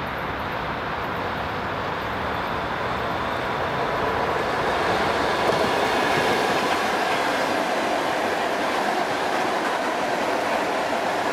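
ET2 electric multiple unit passing at close range: steady rumble of wheels on rail, growing louder over the first half and then holding level as the cars run by.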